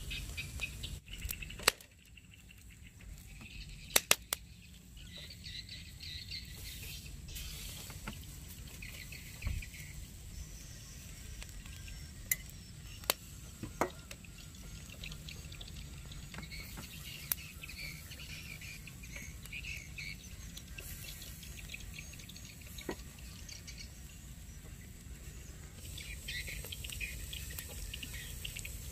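Birds chirping now and then over a low steady hiss, with a handful of sharp clicks from squid skewers being turned and basted on a charcoal grill.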